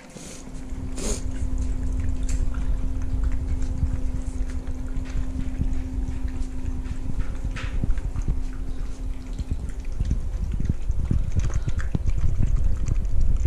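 Shiba Inu puppies and a dog eating from bowls: wet lapping and chewing clicks over a heavy low rumble. A steady low hum stops about nine and a half seconds in.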